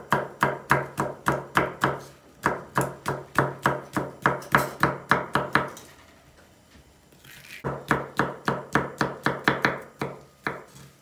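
Kitchen knife chopping a red capia pepper on a wooden cutting board: quick, even knocks of the blade on the board at about four a second. There is a short pause just after the middle, then the chopping resumes.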